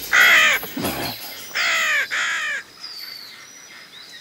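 Crow cawing, harsh and loud: one caw at the start, then two more back to back about a second and a half in.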